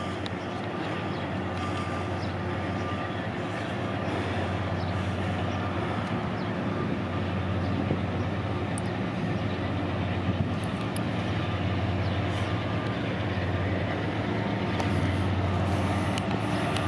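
Diesel-electric freight locomotives, an EMD SD70ACe and a GE C44-9W, running with a steady engine hum as the coal train starts out, throttling up so the sound slowly grows louder.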